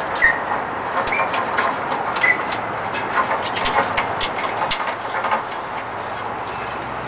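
Wet sandpaper being rubbed by hand over a steel seat standard: a steady scratchy rasp broken by irregular scrapes and clicks. A bird chirps briefly three times in the first couple of seconds.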